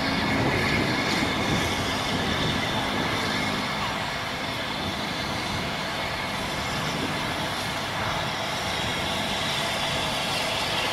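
Bulleid Battle of Britain class three-cylinder steam locomotive 34081 working steadily as it approaches, a continuous noisy sound with no distinct exhaust beats. A few faint steady low tones fade out a little under four seconds in.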